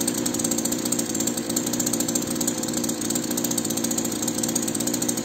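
Two-stroke petrol chainsaw engine idling steadily, chain not cutting.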